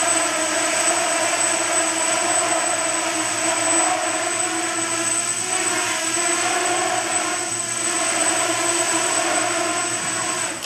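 Small electric quadcopter's four motors and propellers running in low flight: a steady buzz with a thin high whine over it, cutting off abruptly at the very end.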